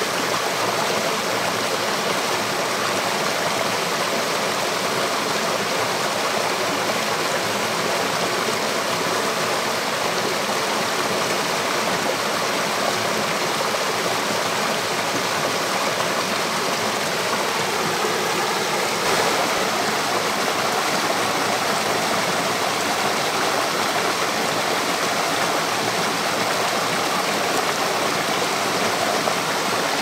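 Mountain stream tumbling in small cascades over boulders: a steady, even rush of water.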